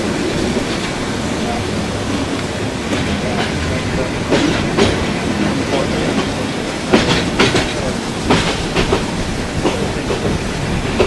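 Passenger train running along the track, heard from on board: a steady rumble with wheels clattering over the rail joints, and a few louder clanks in the second half.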